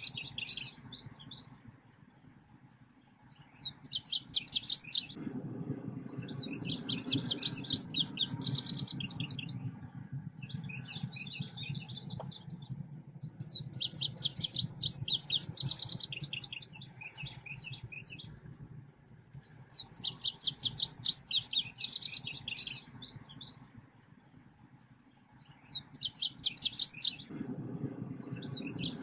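High, rapid, chattering song phrases from the songbird that Indonesian bird-keepers call selendang biru, played as a lure call. Six bursts of two to four seconds each come every few seconds, with a low steady hum underneath for most of it.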